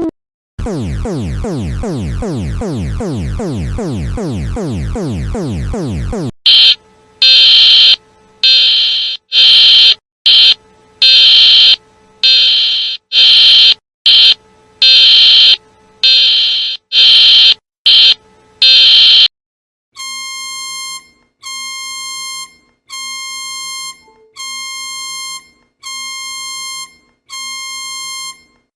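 Emergency Alert System–style alarm tones. First a fast, endlessly repeating downward sweep. About six seconds in it gives way to a string of loud, harsh electronic blasts of uneven length, and after about twenty seconds to a row of shrill beeps about once a second.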